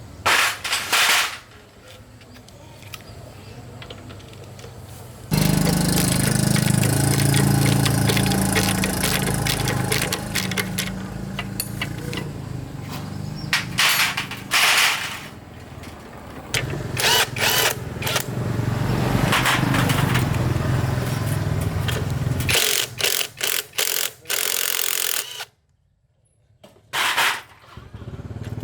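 A small motorbike engine running, with clattering noise over it; the sound starts and stops abruptly several times.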